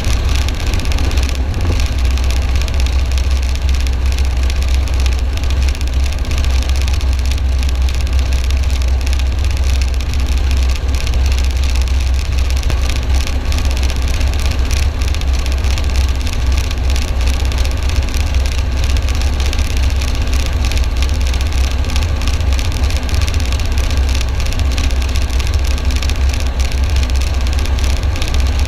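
Military helicopter running, a loud, steady, low drone.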